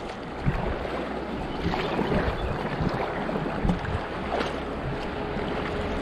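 Steady rush of river water running over a shallow riffle ahead of a kayak, with brief low thumps now and then.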